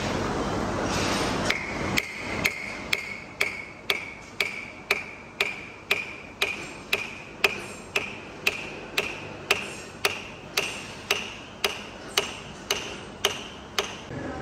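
Hammer blows on steel in a steady series of about two a second, each blow ringing with a metallic tone that creeps slowly higher over the run. A steady noise fills the first second and a half before the hammering starts.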